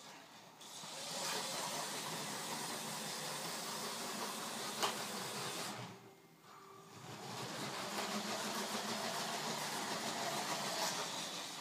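Lego City 60051 high-speed passenger train running on plastic Lego track: a small electric motor whirring and wheels running over the track. The level drops briefly around six seconds in, and there is one sharp click just before five seconds.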